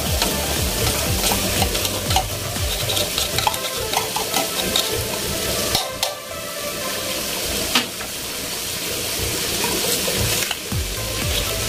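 Eggplant and corned beef frying and sizzling in a wok, with scattered clicks and scrapes as a spoon digs corned beef out of the tin. The sizzle dips briefly about halfway through.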